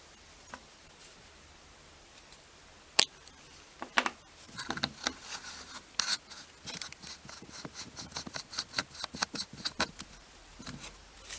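Small plastic camera parts being handled: two sharp clicks, then a run of quick clicks and scrapes as the camera, lens and caps are turned and fitted by hand.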